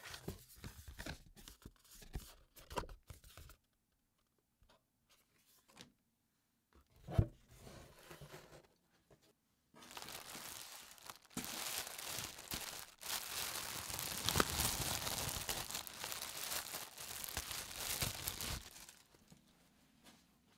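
Packaging handled by hand: paper inserts rustling and tapping, a single thump about a third of the way in, then a long stretch of crinkling and tearing as a clear plastic poly bag holding a shirt is torn open.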